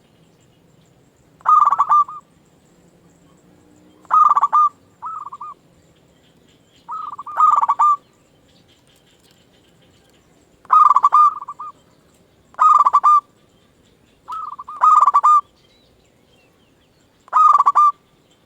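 Zebra doves cooing: short rolling coos about every two to three seconds, some coming in quick pairs.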